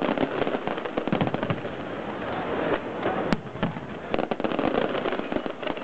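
Fireworks going off: a dense run of crackling with many sharp bangs, one sharper report a little over three seconds in.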